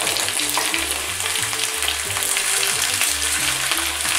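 Sliced potatoes frying in hot olive oil, sizzling steadily, with light scrapes and clicks of a plastic ladle and a slotted spoon as the slices are turned over their browned crust. Background music with low, steady notes plays underneath.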